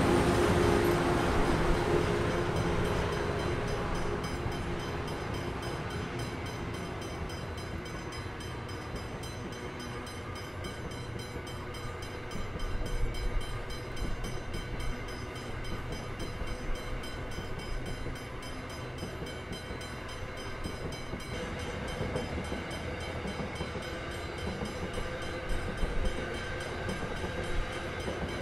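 Freight train's hopper wagons rolling past on the rails: a steady rumble with irregular clattering of wheels on the track, growing busier about halfway. The locomotive's engine fades away in the first few seconds.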